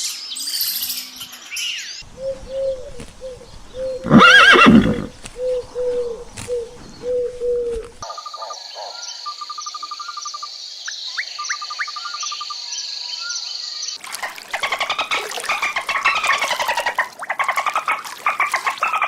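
A series of different animal calls, cut together and changing abruptly about every two to six seconds. The loudest is a long gliding call about four seconds in, over a run of short repeated calls. Later come rapid trills over a steady high tone, then dense pulsing calls near the end.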